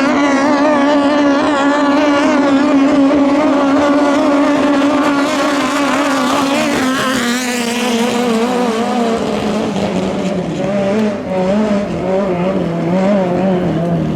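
5K-class racing boat engines running flat out, a loud high-revving drone. Around the middle a second engine note sweeps across it, then the main note drops lower and wavers as the boats pull away.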